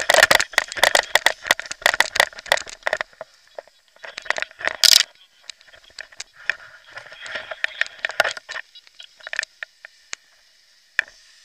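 Tall grass brushing, scraping and crackling against the camera microphone as it skims low through a meadow during a paraglider landing. The grass comes in dense, loud runs of rustling, with a sharp scrape about five seconds in and a few last scattered crackles.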